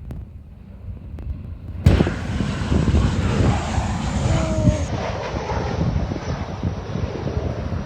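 Aircraft engine noise from a passing airplane, setting in abruptly and loudly about two seconds in, after low wind rumble on the microphone.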